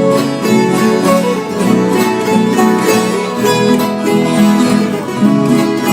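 Instrumental passage of a country song: plucked acoustic guitars playing a steady rhythm, with no singing.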